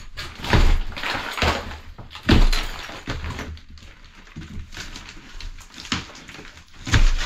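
Tiled plasterboard being torn by hand off a stud wall: several heavy thuds and cracks as board and tiles break away, the loudest about two seconds in and another near the end, with crumbling and rustling debris in between.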